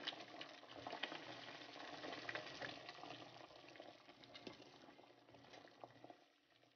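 Water at a rolling boil in a stainless steel pot, bubbling faintly, with small splashes as balls of flour dough are dropped in. The sound fades near the end.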